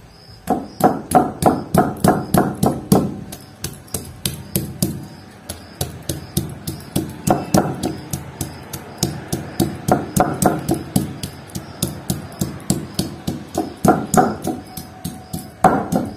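A stone pestle block striking ginger and dried red chillies on a stone grinding slab (sil-batta), crushing them for a masala paste: dull knocks about three a second, in runs with short pauses. Background music with a steady beat plays underneath.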